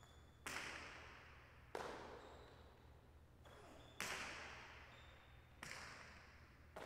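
A jai alai pelota in play, flung from cestas and striking the hard court walls: five sharp cracks one to two seconds apart, each echoing and dying away in the large hall.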